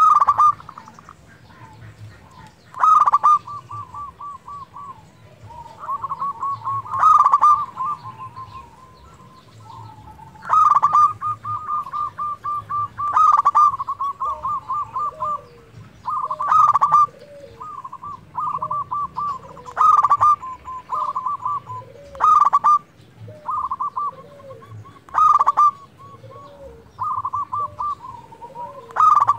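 Zebra dove (perkutut) singing: each phrase opens with a loud sharp note and runs straight into a rapid staccato string of cooing notes, and the phrases repeat about every three seconds.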